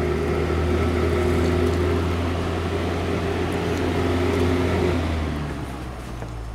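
1953 Fasco box fan running, a steady motor hum under the whoosh of its blades. About five seconds in the motor hum stops and the sound fades gradually as the blades coast down.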